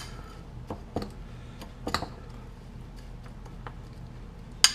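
Metal spoon clinking and scraping against a ceramic bowl while oatmeal is stirred: a few sharp clinks at irregular intervals, the loudest near the end.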